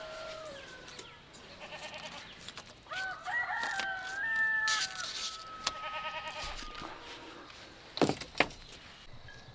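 Rooster crowing: the end of one crow at the start, then a full two-second crow about three seconds in, with clucking between. Two sharp knocks come close together about a second before the end.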